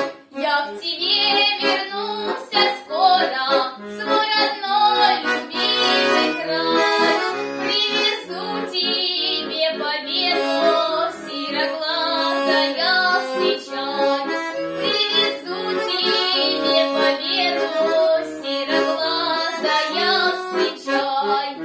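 A female voice singing a Russian wartime folk song to accordion accompaniment.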